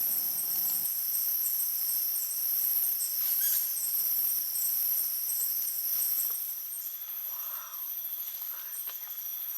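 Night chorus of calling insects in rainforest: a steady, high-pitched, many-voiced trilling in several pitch bands, softening a little after about six and a half seconds.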